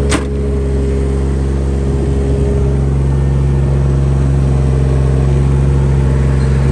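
Bobcat E20 mini excavator's Kubota diesel running steadily while the push blade is worked hydraulically, with one short sharp click right at the start.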